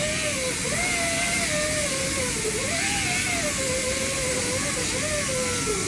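Angle grinder running against a steel weld, its motor whine dipping and rising in pitch as it is pressed in and eased off, over a steady grinding hiss. It is grinding porosity out of a MIG weld so the bead can be laid again.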